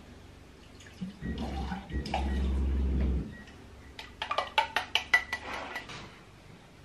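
Water running from a kitchen filter tap into a mug for about two seconds, then a quick run of clinks, about six a second, of a spoon stirring honey water in the mug.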